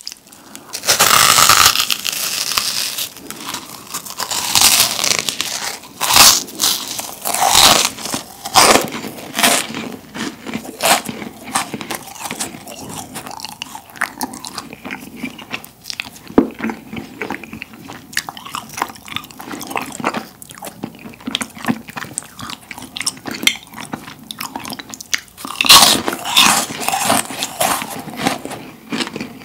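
A large meringue cookie being bitten and chewed close to the microphone: dense, crisp crunching throughout, with louder bursts of crunch about a second in and again near the end.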